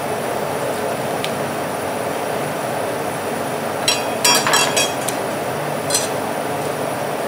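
Steady hum of a rolled-ice-cream cold plate's refrigeration unit running. About four seconds in, a quick run of metallic clinks as a steel spatula is lifted off the steel plate, and one more clink about six seconds in.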